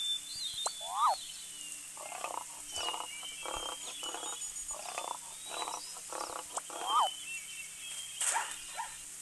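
An animal calling in a rapid series of short, evenly spaced calls, about two a second, with birds chirping higher up.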